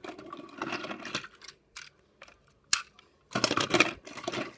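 Plastic Trackmaster toy engines and trucks being handled and set down on a wooden table: irregular clicks and clatters, with the busiest clatter about three and a half seconds in.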